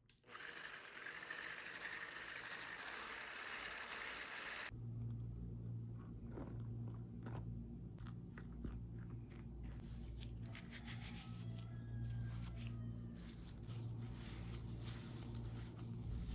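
Electric hand mixer whisking powdered sugar into fat in a glass bowl, a steady whir that cuts off suddenly about five seconds in. Then a silicone spatula scrapes flour into the mix and gloved hands knead crumbly shortbread dough, soft scrapes and clicks over a low steady hum.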